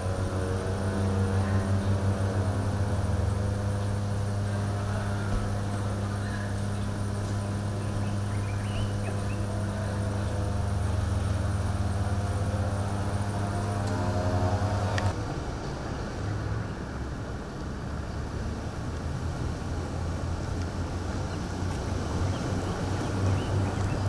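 Motor vehicle engines running at idle: a steady pitched hum for the first fifteen seconds that cuts off abruptly, giving way to a rougher, noisier engine rumble.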